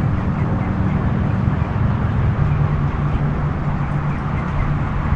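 A motor's steady low drone with a rumble beneath it, its hum growing stronger about halfway through.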